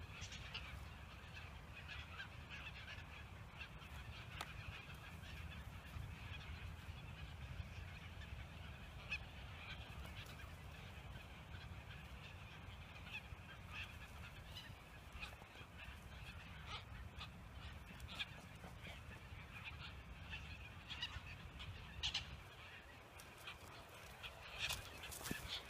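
Seabirds calling in the distance: many short overlapping calls, with a few louder ones near the end, over a low steady rumble.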